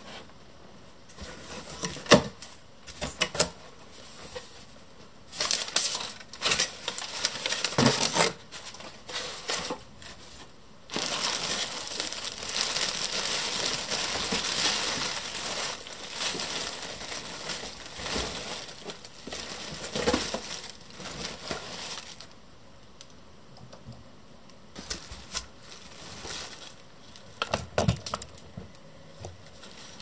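A cardboard shipping box being unpacked by hand: flaps and contents knocked and shifted, with plastic packaging crinkling. Scattered sharp knocks, and a long continuous rustle through the middle.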